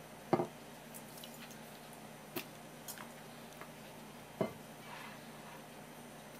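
Soft wet taps and knocks as cut white vegetable pieces are set down one by one on a paper towel over a wooden board, with a louder knock just after the start and another a little past the middle.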